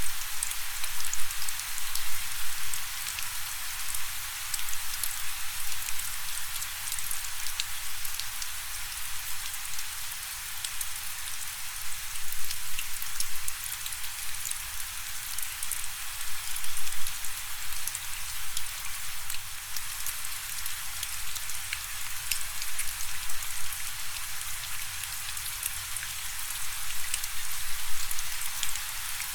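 Steady rain falling, a continuous hiss with many separate drops tapping on a surface.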